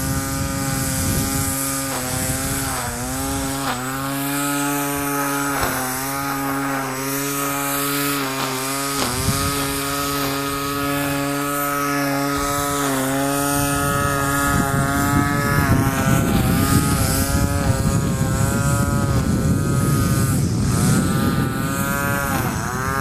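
Electric pusher propeller of a foam RC MiG-29 jet model running in flight, a steady buzzing whine that dips in pitch and recovers every second or two as the throttle is worked. In the second half the sound turns rougher and noisier, with the pitch sweeping up and down as the model manoeuvres.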